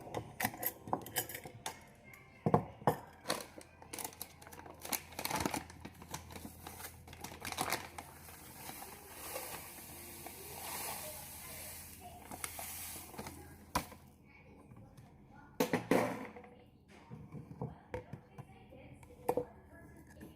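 Knocks, taps and clatter of kitchen utensils being handled, with a few seconds of hissing noise in the middle and a louder clatter near the end.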